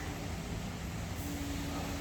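Steady low hum and rumble of background noise, with a faint held tone running through most of it; no bird calls stand out.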